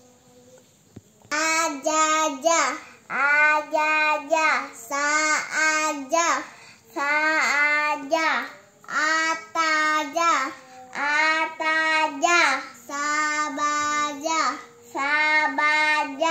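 Young girls chanting Arabic letter-syllables aloud from an Iqro primer in a sing-song recitation: short drawn-out phrases of about a second each, each held and then falling, starting about a second in after a brief quiet.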